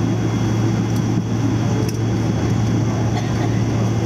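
Steady cabin noise inside a Boeing 777-300ER taxiing after landing: a constant low hum under a broad rumble, from the engines at taxi power and the cabin air system.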